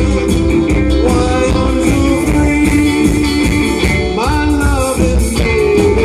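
Live rock-and-roll band playing through a PA: electric guitars, bass, drums and keyboard, with a steady beat. One note slides upward about four seconds in.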